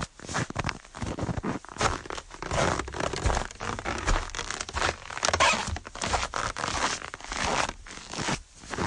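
Footsteps crunching on fresh snow at a steady walking pace, each step a crisp, crunchy squeak-and-crush of packed snow.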